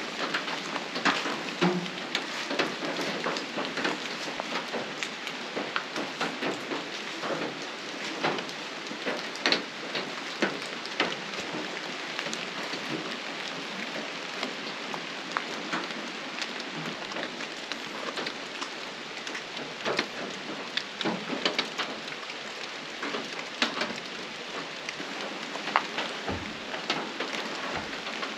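Steady rain falling, with many individual raindrops ticking close by. A few dull low thumps come near the end.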